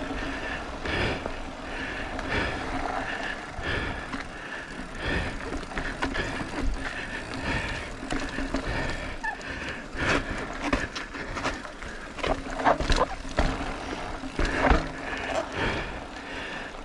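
Mountain bike ridden downhill over granite slab and gravel: tyres rolling and crunching on rock, with irregular knocks and rattles of the bike over bumps, busier near the end, and wind rumbling on the bike-mounted microphone.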